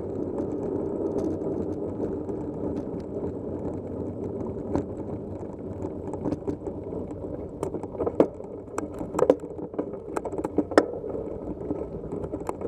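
Vehicle rolling down a rough dirt road: steady road rumble from tyres on gravel and dirt, with sharp rattles and knocks from bumps that come thicker and louder from about seven seconds in.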